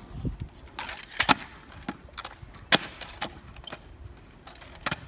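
Stunt scooter rolling on asphalt, its wheels rumbling and its deck and bars rattling, with a few sharp clacks as the rider sets up a fakie heel whip.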